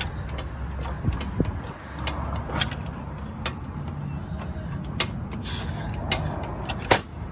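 Hydraulic floor jack being pumped by its long handle to raise a pickup truck, with a sharp click or clank at each stroke about every second, the loudest near the end.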